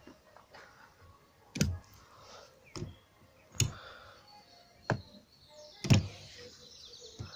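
A series of six short, sharp knocks, spaced irregularly about a second apart, with faint hiss between them.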